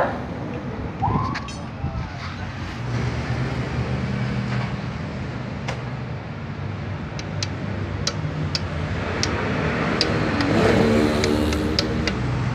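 Hammer tapping a new wheel-bearing race into a Mitsubishi Fuso truck's rear hub: sharp metallic taps starting about seven seconds in and coming faster near the end. Under the taps a vehicle engine hums steadily and swells about ten seconds in.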